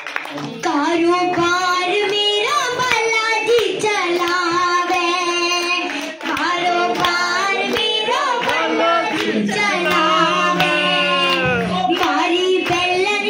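A young girl singing a Hindi devotional bhajan into a microphone, in long held and bending notes, with hands clapping along to the beat.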